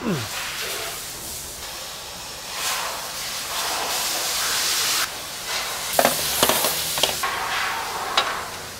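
Aerosol spray can hissing in two long bursts, with a few sharp clicks near the end.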